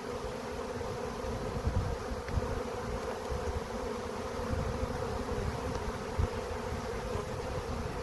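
A honey bee swarm buzzing in flight: a dense, steady hum of many airborne bees just shaken loose from their cluster on a tree branch.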